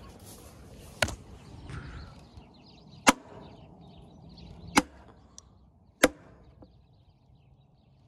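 Metal espresso filter basket from a Cera+ Pro portable espresso machine knocked upside down against the top of a plastic barrel to dump the spent coffee puck: four sharp knocks, a second or two apart.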